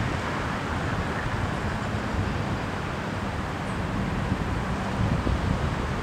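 Wind buffeting the microphone: a low, uneven rumble over a steady outdoor rush.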